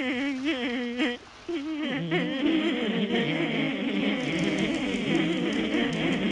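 A cartoon song: a lone voice sings with a heavy, wavering vibrato, then about two seconds in fuller music with several parts comes in and carries on.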